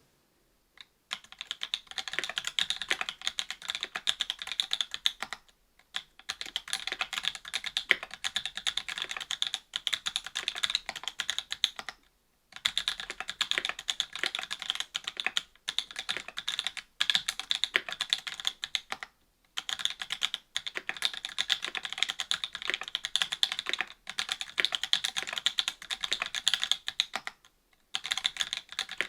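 Fast typing on a mechanical keyboard with stock NovelKeys BOX Cream linear switches, FR-4 plate and GMK doubleshot ABS keycaps: a dense patter of key clacks in runs of several seconds, broken by short pauses.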